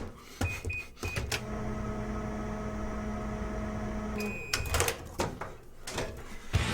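Microwave oven: a few short keypad beeps, then the oven running with a steady hum for about three seconds. It stops with a beep, followed by a few clicks, like the door being opened.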